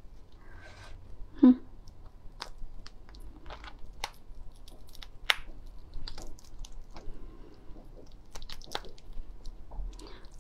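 Hard shell of a cooked slipper lobster being pried and peeled apart by hand: scattered small cracks and crackles, with one sharper crack about a second and a half in.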